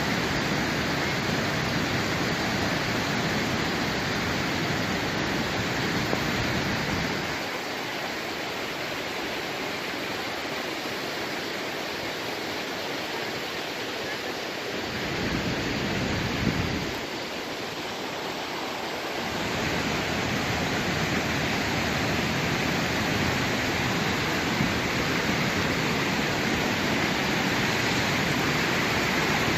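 Storm water during a tropical storm: a steady rushing noise of heavy rain and running water. The deep rumble thins out from about seven seconds in and comes back near twenty seconds.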